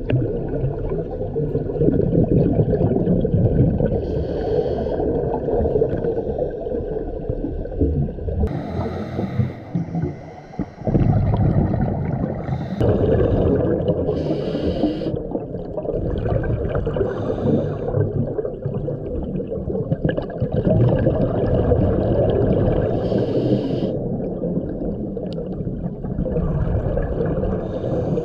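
Scuba regulator breathing heard underwater: a short hiss on each inhale every few seconds, between stretches of rumbling, gurgling exhaled bubbles.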